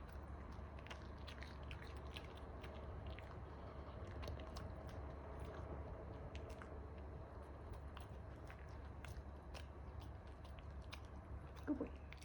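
Close-up chewing and biting, with irregular crisp clicks and crunches spread throughout, over a steady low hum. A brief pitched sound near the end.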